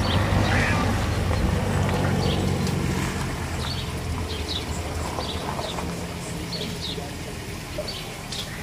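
A low engine drone that slowly fades away over several seconds, with small birds chirping in short high notes throughout.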